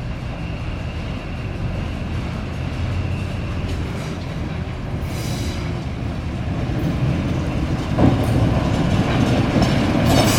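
Passenger train rolling slowly past, its wheels clacking over the rail joints, getting louder from about eight seconds in with a sharp knock.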